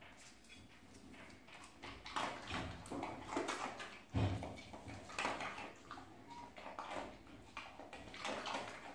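Dog sniffing along a tiled floor: a run of irregular, short snuffling sniffs, with a low thump about four seconds in.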